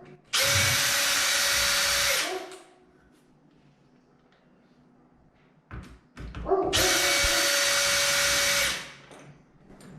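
Power drill backing out a door handle's two mounting screws: two steady runs of about two seconds each, the motor winding down after each, with a few handling clicks before the second.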